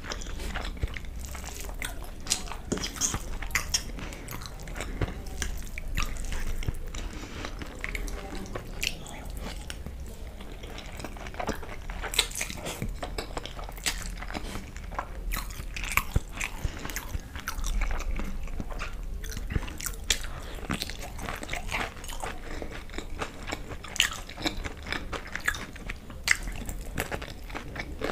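Close-miked chewing of fried masala Maggi noodles, with many sharp crunchy bites and wet mouth clicks.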